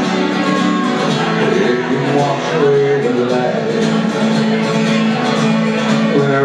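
Acoustic country band playing an instrumental passage: strummed acoustic guitar with bowed fiddle and harmonica.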